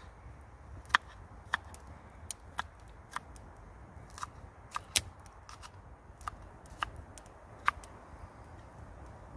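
Wood campfire crackling, with irregular sharp pops about one or two a second over a low steady rumble.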